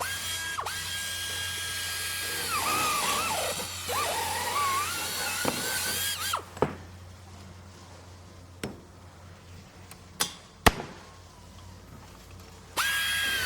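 Electric drill running at full speed with a high whine, its pitch sagging twice as the bit bites under load, then stopping about six and a half seconds in. A few sharp knocks sound in the quieter stretch, and the drill starts up again near the end.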